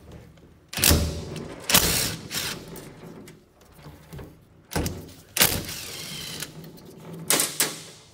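Milwaukee cordless driver running in about four short bursts, backing out the bolts that hold the top covers on a CP4 high-pressure diesel fuel pump.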